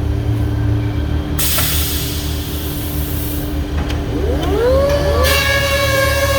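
Large four-sided planer running with a steady low hum and stretches of hiss. About four seconds in, several rising whines level off into a steady high-pitched whine.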